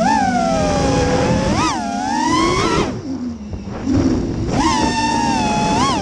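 FPV racing quadcopter's brushless motors whining, the pitch sliding up and down with the throttle in quick punches. About three seconds in the throttle drops off and the whine fades briefly, then it snaps back up at about four seconds.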